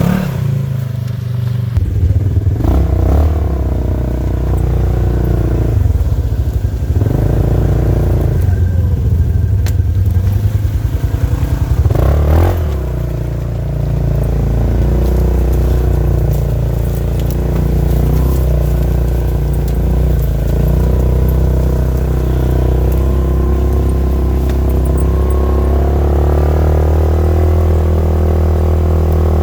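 Polaris RZR side-by-side engine running under throttle, revving up in a few surges during the first half, then running at a steady pitch.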